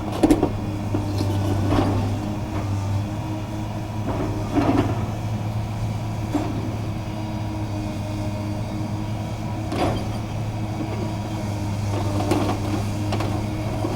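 Heavy demolition machinery running steadily with a low engine hum, with about five sharp knocks and crunches of debris breaking at irregular intervals.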